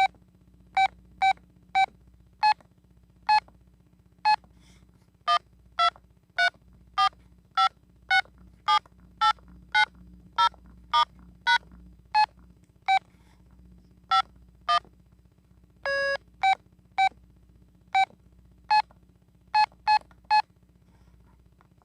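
Telit mobile phone keypad beeping as keys are pressed: a quick, irregular series of about thirty short beeps whose pitch changes from key to key, with one longer, lower beep about 16 seconds in.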